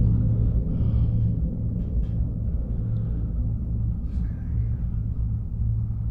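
Steady low rumble and hum inside the cabin of the PEAK 2 PEAK tri-cable gondola as it travels along its cables.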